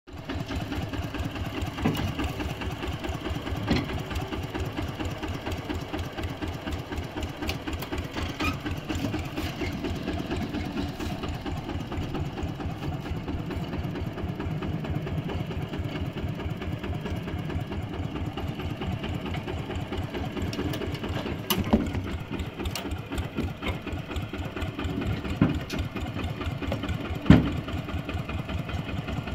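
Single-cylinder diesel engine of a two-wheel walking tractor chugging steadily with a rapid, even beat while pulling a trailer, with a few sharp clunks, the loudest near the end.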